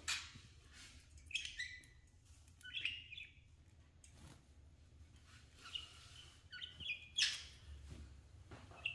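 Budgerigars (budgies) chirping in short, scattered calls every second or two. A sharper, louder call comes about seven seconds in, over a faint steady low hum.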